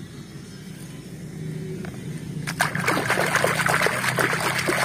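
Water splashing and sloshing as a hand swishes a plastic toy starfish through shallow muddy water to wash it, starting about halfway in. Underneath, a low steady hum.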